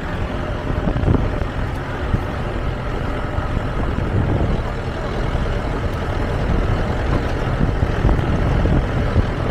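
Jeep driving over a rough, rutted dirt track: a steady engine and road rumble with the occasional knock as it jolts.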